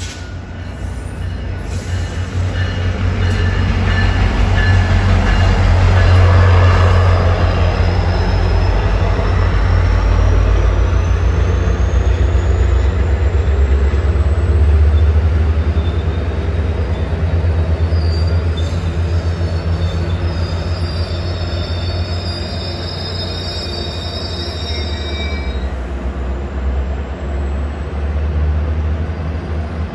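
Sounder commuter train led by an MP40PH-3C diesel locomotive rolling past, with a heavy low rumble from the locomotive and bilevel coaches that swells and then eases off. High wheel and brake squeal comes in over the second half as the train slows.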